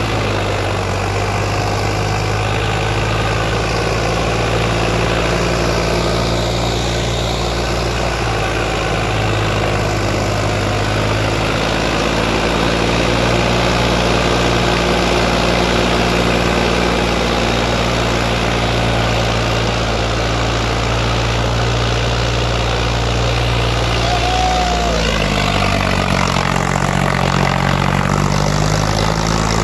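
Sonalika MM-35 tractor's diesel engine running steadily under load while pulling a disc harrow through ploughed soil. Near the end the engine note shifts in pitch before settling again.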